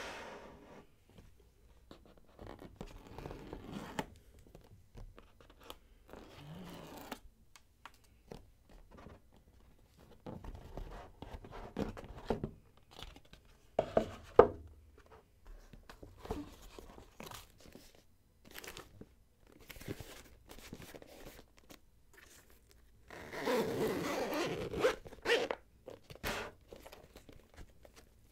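Headphone packaging being opened and handled: scattered clicks, scrapes and rustles, with a longer, louder stretch of rustling near the end.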